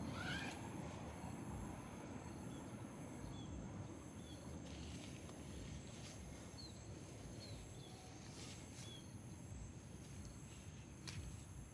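Outdoor nature ambience: a steady high insect drone with small short bird chirps repeating every second or so, a rising call just after the start, and a few sharp ticks, over a low hiss.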